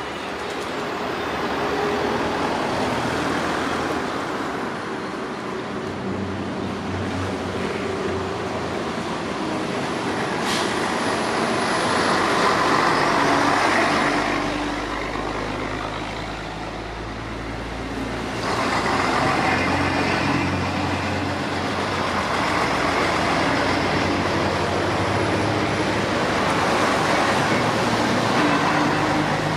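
Vintage diesel trucks driving past one after another, each engine swelling and fading as it goes by, with a deep low rumble about halfway through.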